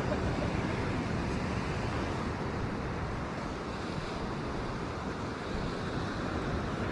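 Ocean waves washing steadily against rocks, with wind noise on the microphone.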